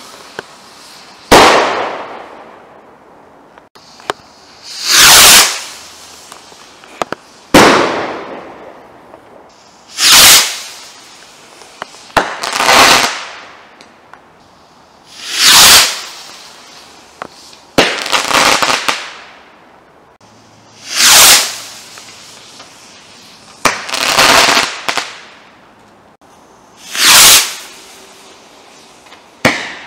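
TNT Fireworks Shooting Comets firing one comet after another, about eleven shots, one every two and a half to three seconds. Each shot is either a sharp crack or a rushing whoosh that swells and fades over about a second, and a couple trail off into a crackle.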